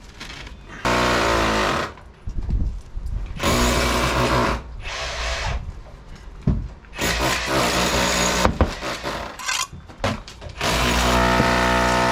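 Handheld electric power tool run in four short bursts of about a second each, its motor whine steady while it runs, with scraping and knocks in the pauses between.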